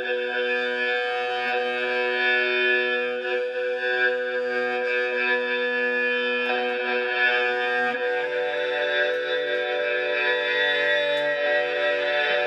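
Homemade bucket cello, a stick neck on a bucket resonator, bowed in a sustained ambient drone. The note steps up to a slightly higher pitch about eight seconds in.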